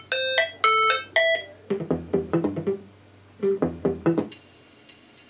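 Music from a phone played through the Aiwa CS-300U boombox's speakers via its line-in. A few ringing, bell-like notes are followed by a run of short plucked notes, and the music breaks off about four seconds in, leaving a faint hum.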